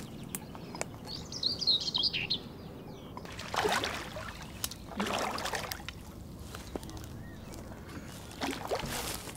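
A hooked carp splashing and thrashing at the surface near the bank while being played in, in three short splashes. A bird sings a brief chirping phrase about a second in.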